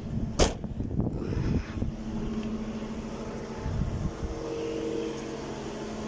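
A car's boot lid slammed shut with one sharp bang about half a second in, followed by a few lighter knocks. A steady low mechanical hum with several held tones runs underneath.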